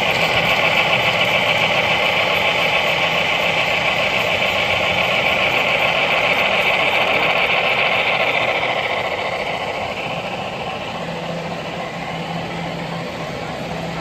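HO scale model of a Pennsylvania Railroad T1 duplex steam locomotive running along the layout: a steady, rapid mechanical whirring that fades about nine seconds in.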